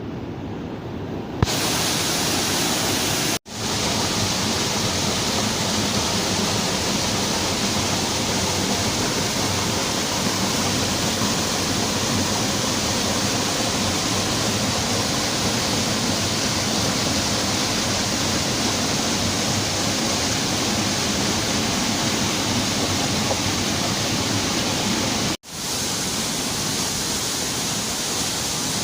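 Waterfall rushing: a steady, dense wash of falling water that gets louder and brighter about a second in, broken by two momentary dropouts, one about three seconds in and one near the end.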